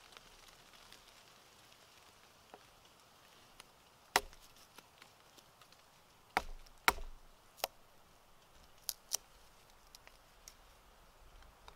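Knife cutting and splitting the end of a wooden stick to carve fork tines: about six sharp cracks and clicks of wood, the loudest about four seconds in and around seven seconds, with faint ticks between them.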